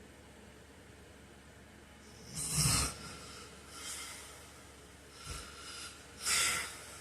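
A sleeping man gives a loud snort about two and a half seconds in, then takes a few softer noisy breaths and a second loud snorting breath near the end, over a steady low background hum.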